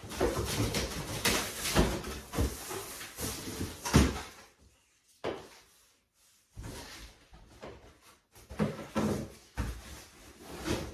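Cardboard boxes and packaging being handled and pulled open: rustling and scraping with irregular knocks and thuds, and a pause of near silence around the middle.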